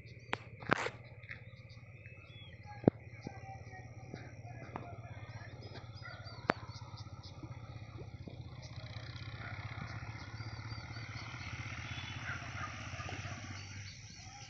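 Rural outdoor ambience: small birds chirping over a steady low hum, with a few sharp clicks in the first seven seconds and a hiss that builds in the second half.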